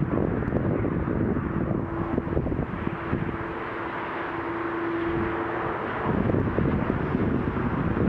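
Distant motorway traffic crossing a long viaduct: a steady wash of tyre and engine noise, with wind buffeting the microphone. A steady hum holds for a few seconds in the middle while the wind rumble eases.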